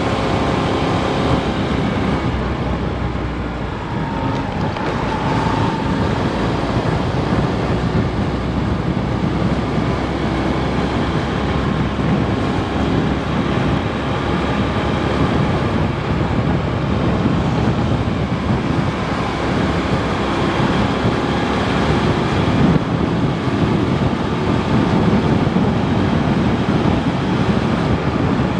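Daelim Citi 100 motorcycle on the move, its small engine running steadily under a loud rush of wind and road noise on the microphone.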